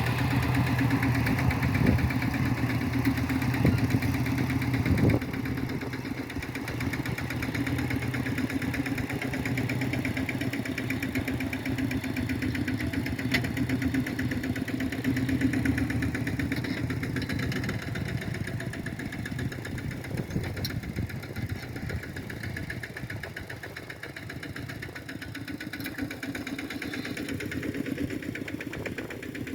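Kubota M7040 tractor's diesel engine running steadily under load while ploughing a paddy field, louder for the first five seconds and then a little lower.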